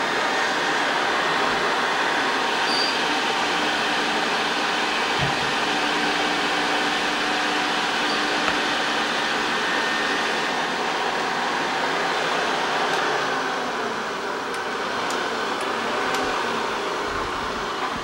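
Vacuum cleaner running steadily, an even rushing noise of motor and airflow.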